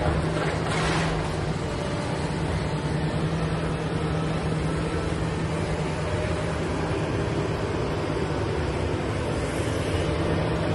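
Kobelco hydraulic excavator's diesel engine running with a steady low hum as it raises and swings its demolition grapple arm, with a brief burst of noise about a second in.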